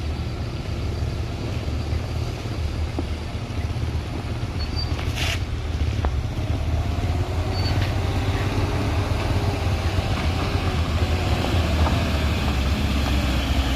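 Heavy truck engine running under load on a steep climb, a steady low rumble with a faint wavering engine note partway through. A single short click comes about five seconds in.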